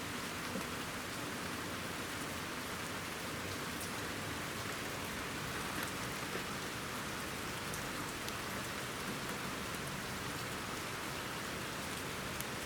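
Steady light rain falling, an even hiss with a few faint single drops ticking now and then.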